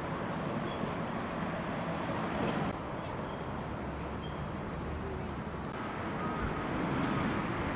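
Steady outdoor background noise of distant road traffic.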